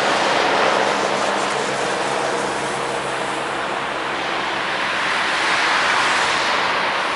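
AgustaWestland AW109 twin-turbine air ambulance helicopter climbing away after takeoff: steady rotor and turbine noise, dipping a little midway and rising again near the end.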